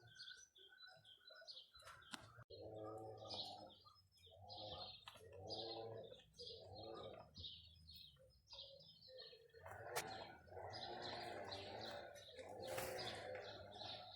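Doves cooing faintly in a repeated series of low, half-second coos, with small birds chirping higher above them.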